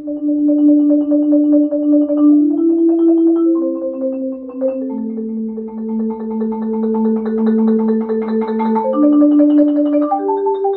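LV1200FC concert marimba played with four mallets: rolled chords, the rapid strokes holding each chord, shifting to a new chord every second or two.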